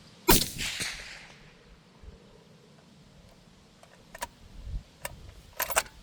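A single suppressed rifle shot about a third of a second in, a sharp crack with a tail that dies away over about a second, from a 25 GT rifle fired through a Silencer Co Omega 300 suppressor. Then a few quieter sharp clicks in the last two seconds as the bolt is cycled for the next shot.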